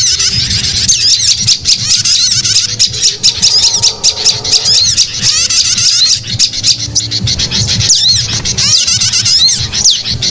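Dense chorus of many small songbirds chirping, twittering and squawking at once, rapid short notes overlapping without pause, as played in a bird-lure recording. A low steady hum runs underneath.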